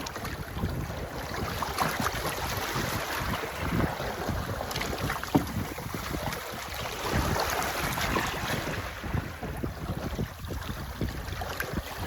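Wind buffeting the microphone aboard a sailboat, with the rush of water along the hull, and one sharp knock about five seconds in.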